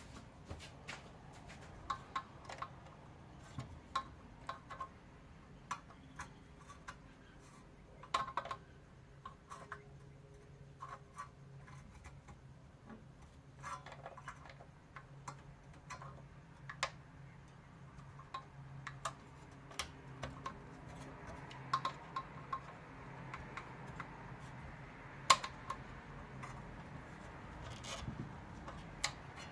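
Irregular small clicks and taps of tools and plastic parts during hand work on a Briggs & Stratton lawnmower engine, prying at the primer bulb and its plastic retaining ring. One sharper knock about 25 seconds in.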